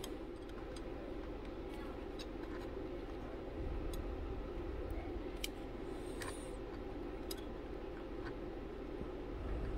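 Old Weller soldering gun humming steadily while it heats a fluxed copper fitting on a brass tube, with a few faint ticks.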